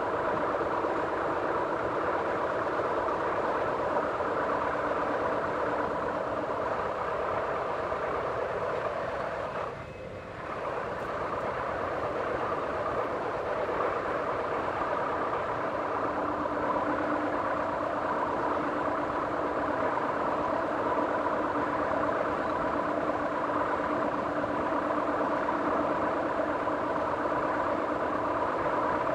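Jura Railways metre-gauge passenger train running along the line, heard from the driver's cab: a steady running rumble with a constant whine. The sound dips briefly about ten seconds in.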